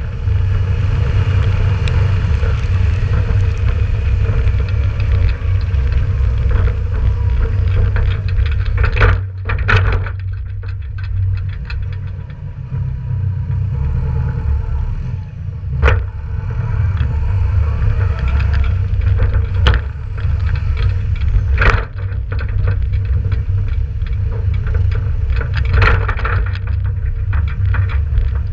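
Ford 7000 tractor's four-cylinder diesel engine running as it tows an empty farm trailer, under a steady deep rumble from the trailer. The trailer body gives about five loud bangs over bumps.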